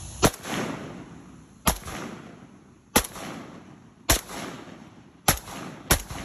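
Six single shots from an AK-pattern rifle, fired one at a time about a second or more apart, the last two closer together. Each crack is followed by a short fading echo.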